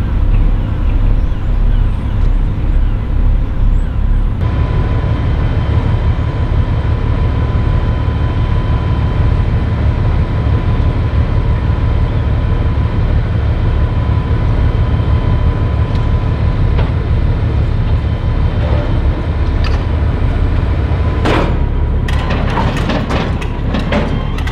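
Steady low rumble of a berthed car ferry's diesel engines and machinery, with a faint steady whine over it. Several sharp knocks come near the end.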